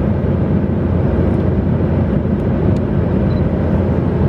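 Steady low drone heard inside an airliner cabin: engine and airflow noise.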